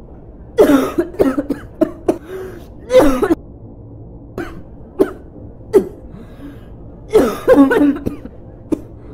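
A boy coughing in fits, acted as a sign of illness: clusters of coughs about half a second in, around three seconds in and again near the end, with single coughs between.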